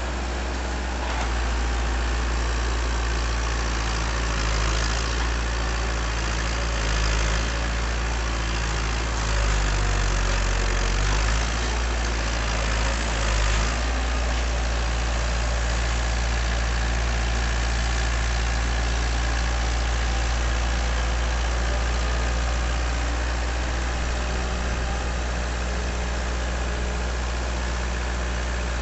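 Massey Ferguson 275 tractor's diesel engine running steadily, driving a tractor-mounted auger rig boring a pile hole in soil. The engine note shifts briefly about a third of the way in, then settles again.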